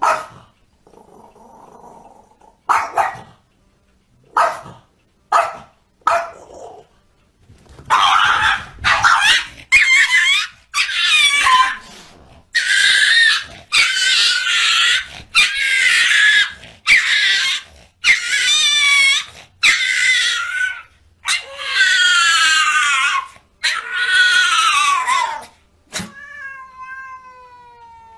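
A small dog barking sharply about five times, then a long run of loud, wavering yowls and screams from the dog and cat as they scuffle, ending with one long falling cry.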